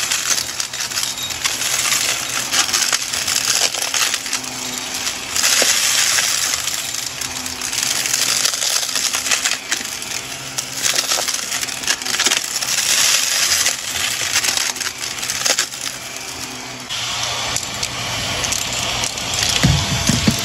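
Shark upright vacuum running with its wand on carpet, sucking up confetti and small hard debris: waves of crackling and rattling as the bits rush up the tube, over the motor's steady hum. A low bump near the end.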